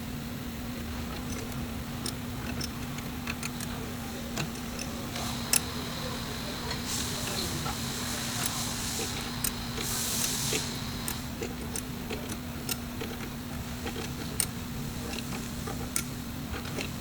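Scattered light clicks and metallic clinks, typical of hand tools and parts being handled during hands-on repair work, over a steady low hum. There are two short hisses, one about seven seconds in and one about ten seconds in.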